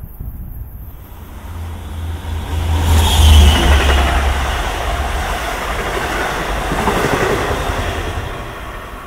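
Long Island Rail Road diesel-hauled train of bilevel coaches passing close at speed. A deep engine rumble swells to its loudest about three seconds in, over the steady rush and clatter of wheels on the rails. A high squeal falls in pitch as the rumble peaks, and everything dies away near the end.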